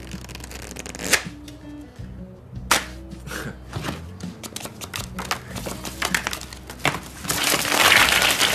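Background music with short plucked-sounding notes, over which come sharp clicks, one about a second in, one near three seconds and a quick run of them later. A loud rush of noise swells up near the end.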